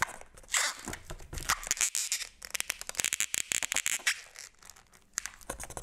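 Latex modelling balloons being handled and twisted in the hands: a run of irregular short rubbing scrapes and clicks of rubber on rubber, easing off briefly near the end.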